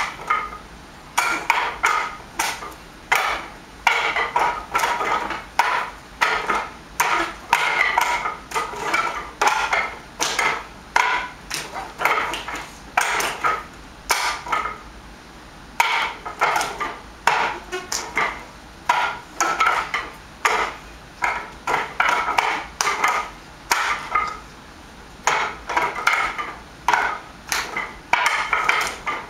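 Wing Chun wooden dummy (mook yan jong) being struck: quick runs of hard wooden knocks and clacks as forearms and palms hit its wooden arms, with a couple of short pauses between sequences.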